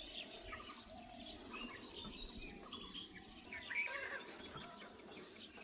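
Small birds chirping in scattered short calls, faint, over a quiet rural background.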